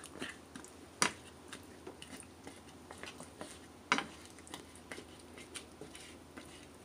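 A black spatula stirring a chunky chicken and potato stew in a pan: soft scrapes and light ticks, with two sharper knocks against the pan about one and four seconds in.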